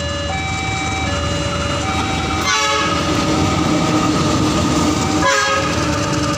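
A railway level-crossing alarm repeats a two-note electronic chime, changing note about every three quarters of a second, over the low rumble of a diesel locomotive. Twice, a brief sweeping sound cuts across it.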